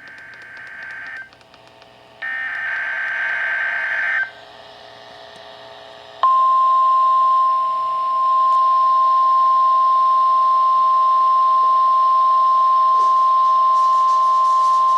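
NOAA Weather Radio SAME alert signal: the tail of one digital header burst, a second raspy data burst about two seconds long, then a single steady warning alarm tone at about 1050 Hz starting about six seconds in and holding for about nine seconds. It marks a required weekly test of the weather radio warning system.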